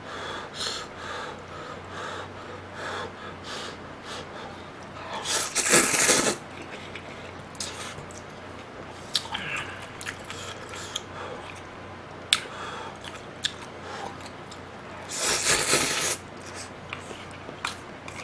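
A person eating ramen noodles from the soup: two loud slurps, each about a second long, one about five seconds in and one near fifteen seconds, with chewing and small clicks between.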